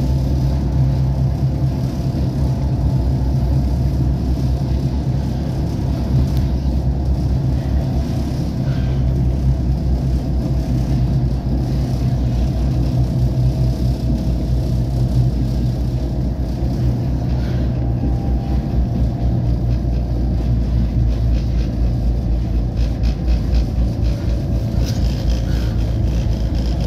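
Riding inside a moving tram: a steady rumble of wheels on rail, with the hum of the traction motors held under it.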